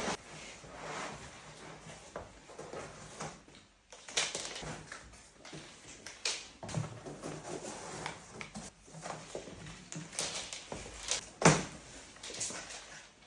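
Irregular handling noises from a refrigerator being unboxed: scattered rustles, clicks and knocks, with one sharp knock about eleven seconds in.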